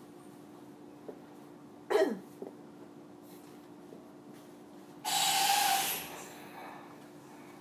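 Inside a Kintetsu Series 21 train car standing at a station, a steady low hum from the car's equipment. About two seconds in comes a short cough-like burst that falls in pitch, and about five seconds in a louder hiss lasting about a second.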